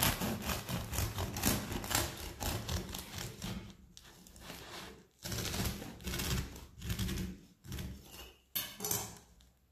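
Serrated bread knife sawing through the very crisp crust of a round durum-wheat loaf: a quick run of rasping, crunching strokes, pausing briefly twice and then a few more strokes before the cut is through near the end.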